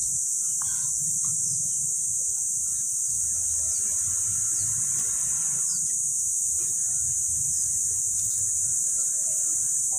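Steady, high-pitched drone of an insect chorus, unbroken throughout, over a low rumble.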